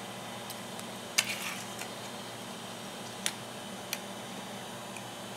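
A 3D-printed plastic part being twisted and pried loose from a printer's build plate: a few sharp clicks and cracks, the loudest about a second in with a brief crackle after it, over a steady low hum.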